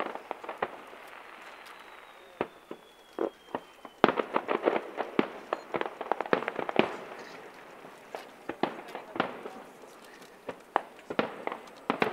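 Fireworks display: a string of sharp bangs and crackling reports, few at first, then a dense rapid cluster about four seconds in that thins out into scattered bangs.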